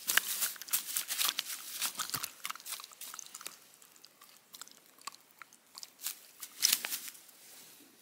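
A freshly caught perch flopping and thrashing in dry grass and reed stalks: crisp crackling rustles. They come in a dense run over the first few seconds, thin out, and bunch again in a loud burst near the end.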